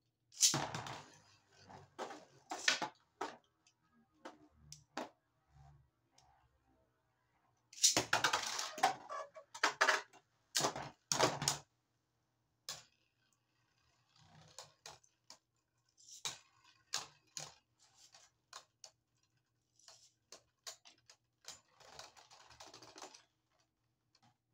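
Two Beyblade Burst spinning tops launched with a ripcord launcher and battling in a plastic stadium: bursts of sharp plastic clacks and rattles as they collide, coming in clusters with short pauses between, the loudest near the start and about a third of the way in.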